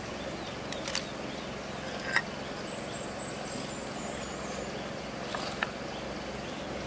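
Steady rushing of river water, with a few light clicks and knocks and a faint, thin, high whistling call in the middle.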